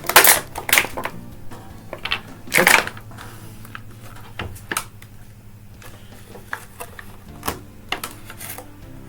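Plastic and cardboard packaging of a boxed action figure being handled and pulled apart: scattered clicks, snaps and crackles, loudest and most frequent in the first three seconds.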